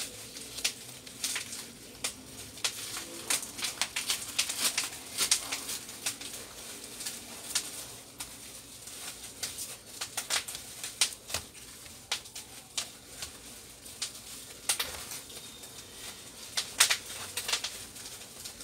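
Irregular clicks, taps and crinkles of a laptop LCD panel and its clear plastic wrapping being handled and fitted by hand, in scattered clusters with short pauses between them.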